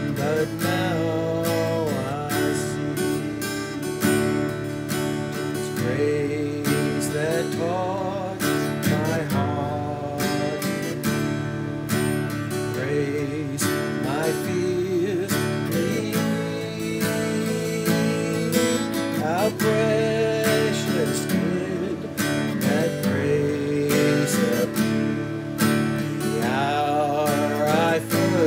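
Acoustic guitar strummed in a steady rhythm of open chords, with a man's voice carrying a melody over it in short wavering phrases.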